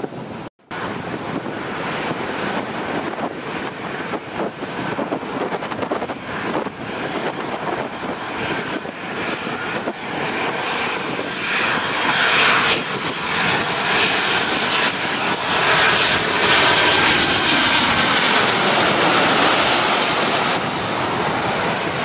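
Jet engines of a Ryanair Boeing 737 on final approach, a whine that grows louder and is loudest as the plane passes low overhead, its pitch sliding down near the end. Gusty wind buffets the microphone underneath.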